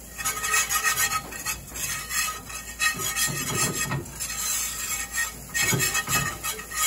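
Wire whisk scraping and stirring flour cooking in fat in a cast iron skillet, making the roux for a gravy: quick, uneven scratching strokes against the pan bottom.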